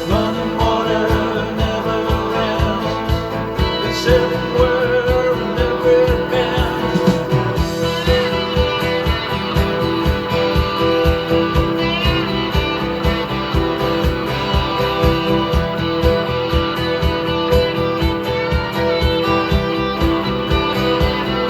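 Music: a guitar-led song with a steady beat.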